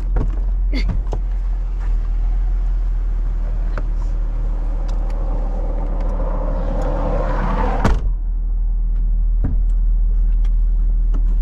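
Car cabin noise: the engine and road run steadily as a low hum and hiss. About six seconds in a rushing noise swells and ends in a sharp clunk about eight seconds in, after which the hiss is duller.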